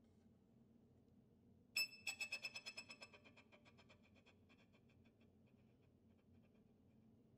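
Solo violin: about two seconds in, a sudden high note that breaks into quick repeated pulses, about ten a second, fading away over a few seconds. Otherwise near silence.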